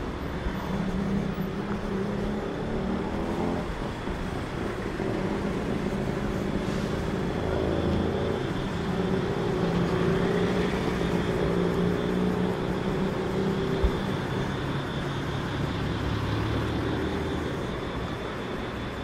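Street traffic: vehicle engines running and passing close by over a steady wash of road noise, with one sharp click about fourteen seconds in.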